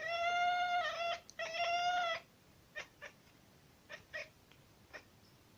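Domestic cat answering a human sneeze with two long, level-pitched meows, one right after the other, followed by a few faint short clicks.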